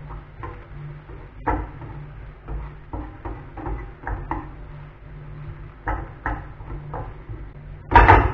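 Wooden spatula scraping and knocking against a frying pan as diced carrots and onion are stirred, in irregular strokes, over a steady low hum. A louder clatter about eight seconds in.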